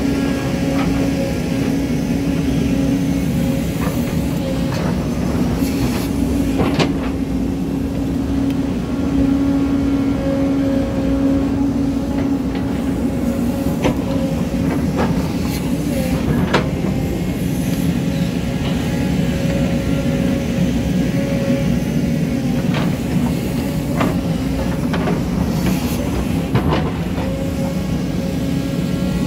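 Tracked excavator's diesel engine running steadily under load while digging soil and rock, with a few sharp knocks scattered through it from the bucket and stones.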